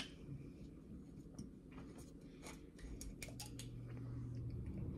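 Light clicks and scrapes of an eating utensil in a plastic bowl of rice, clustered about two to three and a half seconds in, over a low steady hum.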